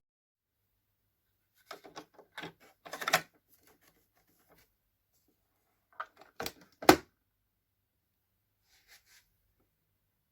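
A few groups of short, sharp clicks and knocks. There is a quick run of them about two to three seconds in, more about six to seven seconds in with the loudest knock near seven, and a faint pair near nine seconds.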